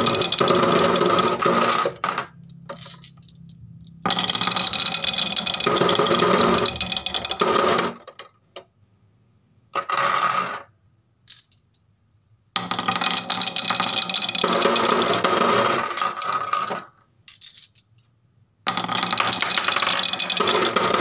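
Glass marbles rolling along a wooden track and clattering into a clear plastic toy truck, piling onto the marbles already inside. The clatter comes in several long, dense runs separated by pauses of a second or two.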